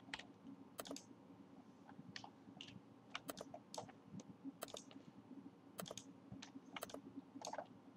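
Faint, irregular clicks of a computer mouse and keyboard as the user picks parts on screen, over a low steady hum.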